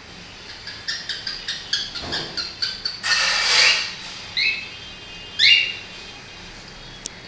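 Cockatiel calling: a quick run of short chirps, about four a second, then a loud harsh screech about three seconds in, followed by two short rising calls.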